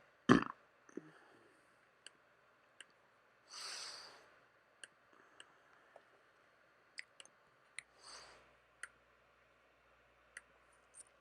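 Small plastic LEGO pieces being handled and pressed together: scattered sharp little clicks, with one louder knock right at the start. Two soft breaths, one about four seconds in and another about eight seconds in.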